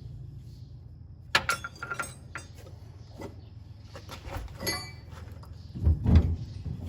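Sharp metallic knocks and clinks at irregular intervals, a few of them ringing briefly: an arm being struck to drive it back onto its shaft on a combine's hydrostat linkage. Under them runs a steady low rumble, and heavier dull thuds come near the end.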